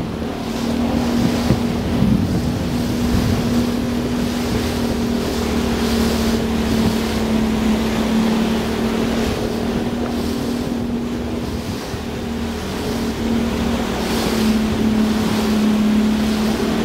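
Motorboat engine running with a steady hum, mixed with wind buffeting the microphone and water washing against the hull.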